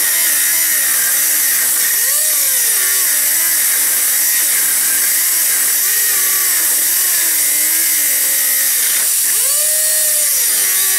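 Handheld cutoff-wheel tool cutting through an exhaust pipe: a loud, steady hiss of the disc on metal, with the tool's whine dipping and recovering again and again as the wheel bites into the pipe.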